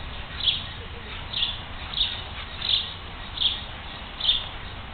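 A bird chirping over and over, one short high call about every three-quarters of a second, over a steady low background hiss.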